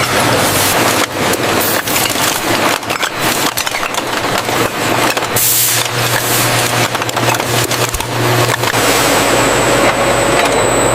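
Loud factory machinery running with dense crackling and knocking clatter, giving way near the end to a steadier machine noise with a low hum.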